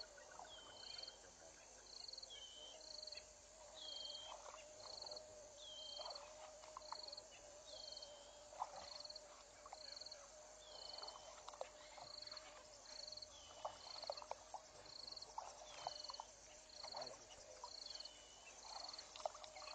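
Faint wild bush sounds: a small animal's high call repeats about once a second, a short buzzy note often followed by a lower note that slides down. Under it run a faint steady drone and scattered short chirps.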